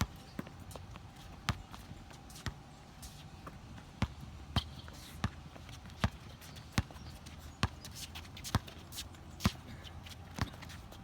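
A ball bouncing or being struck over and over, one sharp smack roughly every second.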